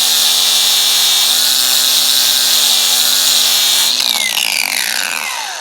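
Hyper Tough 20V 4.5-inch cordless angle grinder with a grinding pad running at full speed, stripping paint from a stair railing with a steady whine and hiss. About four seconds in it is switched off and spins down, its whine falling in pitch as it fades.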